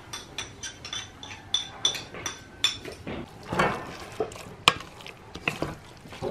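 A metal spoon clinking and scraping quickly against a small ceramic bowl, each stroke ringing briefly, then a wooden spoon stirring and scraping a thick, wet mixture in an enamel pot, with a sharp knock of the spoon against the pot a little before the middle.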